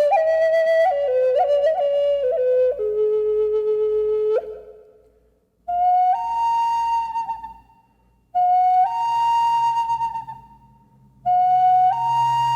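Solo flute melody. It steps down through several notes to a long held low note. Then three times it plays a short note that steps up to a higher held tone and fades.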